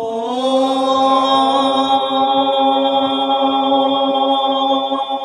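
Sung chant: voices slide up into one long note and hold it steady, rich in overtones, like a sustained mantra.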